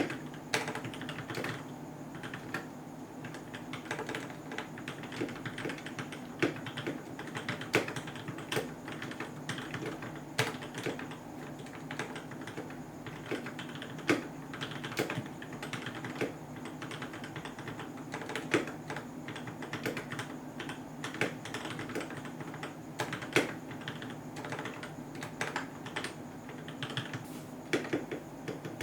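Typing on a Keychron K6 mechanical keyboard whose Gateron Red linear switches have been lubed and filmed: a steady run of irregular keystrokes with a muted clack.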